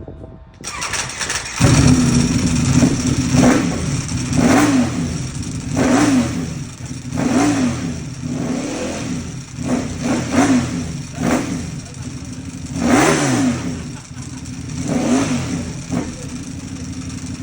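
Ducati Panigale V4's V4 engine with an Akrapovič titanium exhaust starting up. It catches about two seconds in, is revved in about a dozen short throttle blips, then settles to a steady idle near the end.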